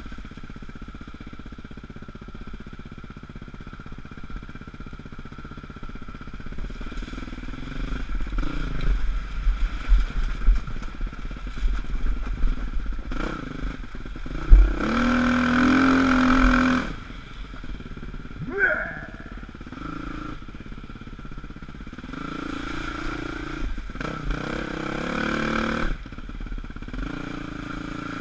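Dirt bike engine running under the rider, the throttle opening and easing off over the trail. It rises to its loudest for about two seconds near the middle and again for a few seconds later on.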